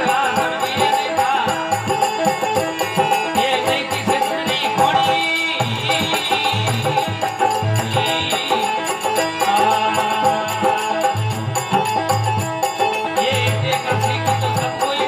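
Bhajan music with no singing: an organ plays a wavering melody over held notes, with a fast, even rattling percussion rhythm and low drum strokes.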